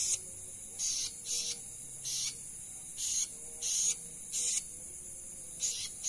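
Night insects: a steady high-pitched trill from crickets, with a louder short chirp repeating unevenly, about once or twice a second.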